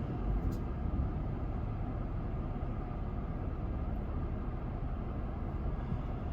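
Steady noise inside a vehicle's cabin: the engine running with the air-conditioning fan blowing cold air.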